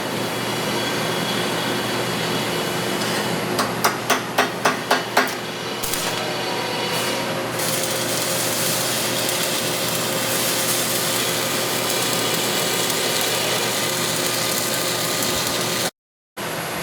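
Stick welding (shielded metal arc) with a 7024 rod: a steady crackling hiss from the arc, with a quick run of about eight sharp taps around four to five seconds in.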